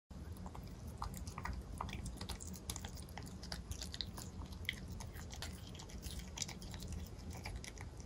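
A cat chewing soft, chopped beef and cheese stew, a quick irregular run of small wet clicks and smacks.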